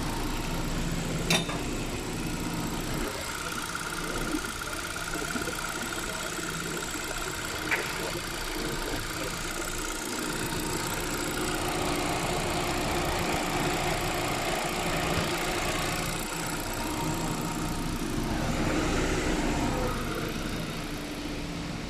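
Hyundai Accent engine idling steadily with the air conditioning running, its A/C freshly recharged after a condenser leak repair. Two sharp clicks stand out, about a second in and again near the middle.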